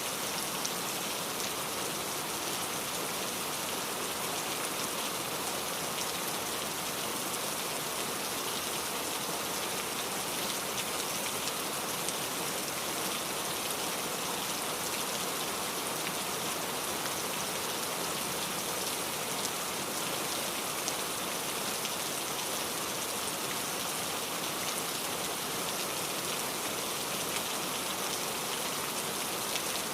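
Steady rain falling, an even hiss with the patter of drops on a surface.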